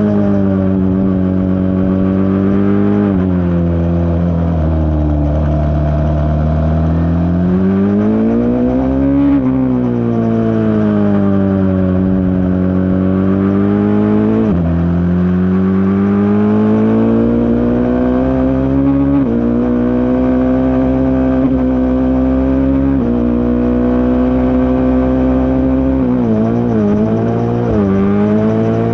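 A racing engine running hard without a break. Its pitch climbs under acceleration and drops sharply several times at gear changes or lifts off the throttle, with a quick run of drops near the end.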